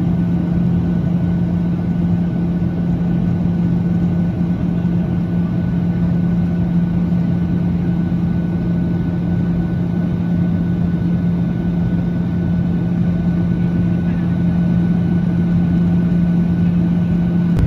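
Steady drone of an airliner's engines and rushing air heard from inside the passenger cabin, with a constant low hum and no change in pitch.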